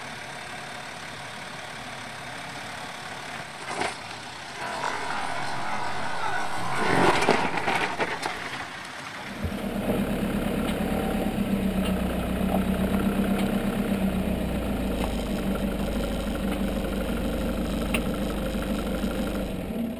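A Land Rover Discovery crawling down a steep rocky track, with knocks and a louder burst of noise about seven seconds in as it works over the rocks. About halfway through this changes abruptly to a 4x4's engine running steadily, heard close by its front wheel.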